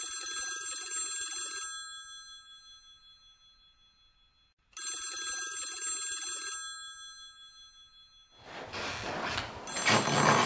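Old-style desk telephone's bell ringing in rings of about two seconds with pauses between: three rings, the last near the end. Footsteps and movement come in about two-thirds of the way through.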